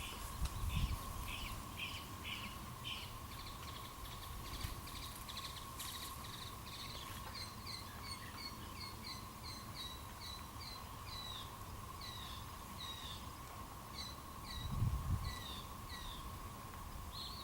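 Songbirds chirping over and over in short, evenly spaced notes, with a steady faint high tone underneath. Wind buffets the microphone with a low rumble twice, once about a second in and once near the end.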